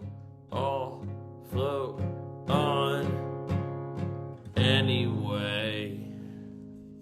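Acoustic guitar strumming under a voice singing the song's closing lines, ending on a final strummed chord about four and a half seconds in that rings out and fades.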